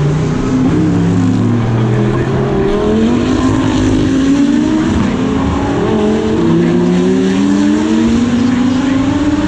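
GT3 race car engines running hard, their pitch climbing and dropping repeatedly as they rev and change gear. Several cars are heard at once.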